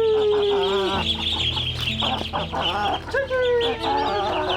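A flock of chickens calling while being fed rice: constant high peeping, short clucks, and two long drawn-out calls, one at the start and one about three seconds in.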